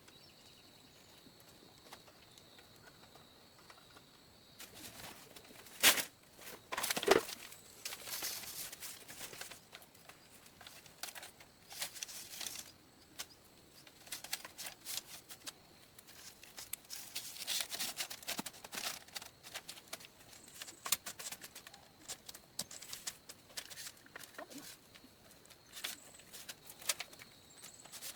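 Irregular clicks, taps and scrapes of handwork, the loudest two sharp knocks about six and seven seconds in, over a faint steady high-pitched tone.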